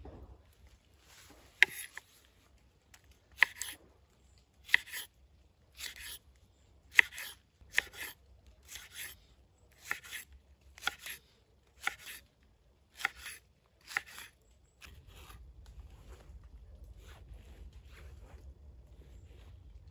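Kitchen knife slicing a long green pepper on a wooden cutting board: about a dozen sharp chopping strokes, roughly one a second, that stop about two-thirds of the way through. Softer handling noise follows.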